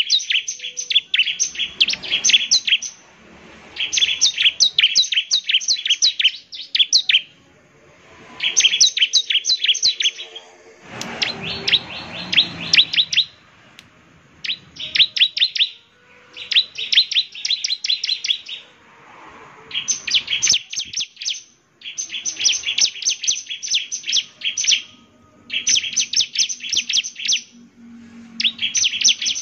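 Bar-winged prinia singing: loud phrases of rapid-fire, sharp, high chirping notes, each lasting a second or two, repeated again and again with short pauses between them.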